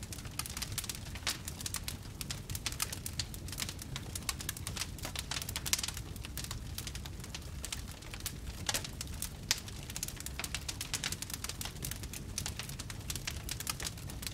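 Wood fire in a fireplace crackling and popping: a dense, irregular stream of sharp crackles over a low steady rumble of the flames, with a few louder pops.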